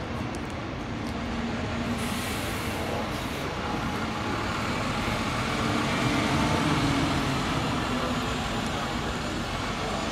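Train rolling through the station, a steady rumble with faint tones. It swells to its loudest about six to seven seconds in, then eases a little.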